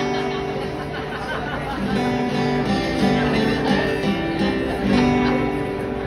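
Guitar strumming chords, a few chord changes ringing out.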